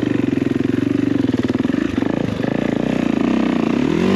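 Kawasaki motocross bike's engine running at low revs under load, stumbling briefly about two seconds in, then revving up near the end.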